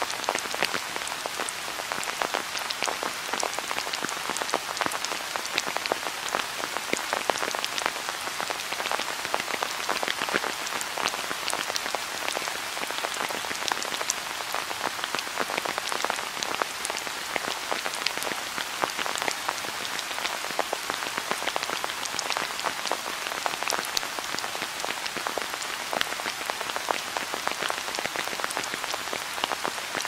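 Steady rain, with many close individual raindrops striking distinctly over an even hiss of falling rain.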